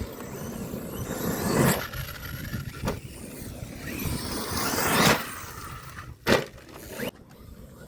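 Large electric RC trucks driving over dirt, their motors and tyres swelling loud twice as they pass. There are sharp knocks about three seconds in and twice near the end, from landings or hits.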